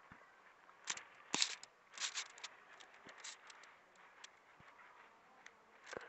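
Fingers digging and scraping through loose garden soil among sweet potato vines: faint scratchy scrapes and crackles in several short clusters, loudest about a second and a half in and again around two seconds in.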